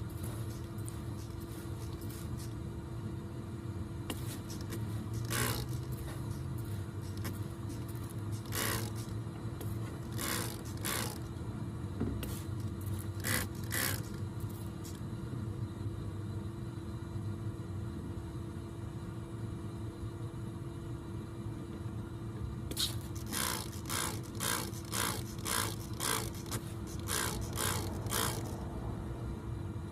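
A vacuum motor runs with a steady hum, pushing air into the exhaust system to find a leak. Over it come repeated short bursts of hiss: a few scattered, then a quick run of about two a second near the end.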